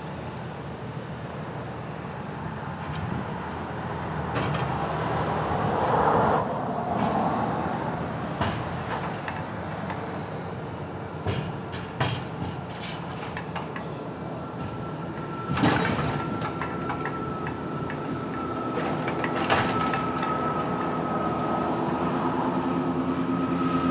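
Grapple truck's engine and hydraulics running as the crane works, swelling for a few seconds early on, with sharp metal knocks and clanks from the grapple and crossties against the steel gondola. A loud clank about two-thirds of the way in, after which a steady high whine sets in and holds.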